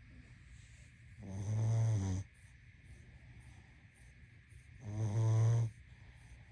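Pug snoring: two snores of about a second each, some three and a half seconds apart.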